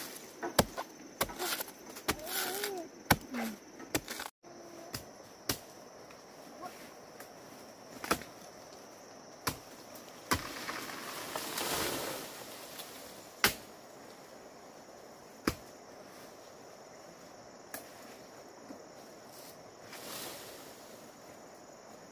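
Machete chopping into a banana stem: a quick run of sharp chops for about four seconds. After a break, single sharp knocks come every couple of seconds over a steady high tone.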